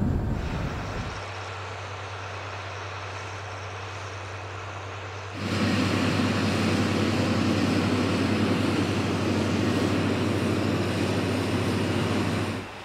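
Vehicle engine noise: first a pickup truck moving off along a dirt track, then, after a sudden jump about five seconds in, the louder steady running of tractor engines working a field with soil-working implements.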